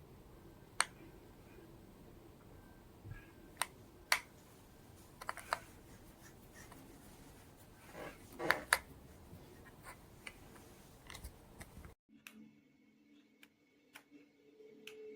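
Scattered sharp clicks and taps, like small objects being handled, over a faint room hum. About twelve seconds in the sound cuts abruptly to near quiet with a soft, steady low tone.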